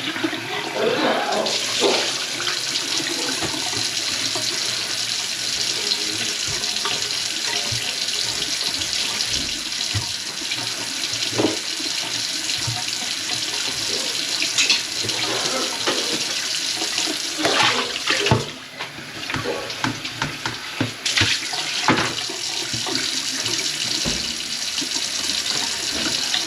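Water running from a kitchen faucet into the sink in a steady rush, with a few knocks and a brief drop in the flow about two-thirds of the way through.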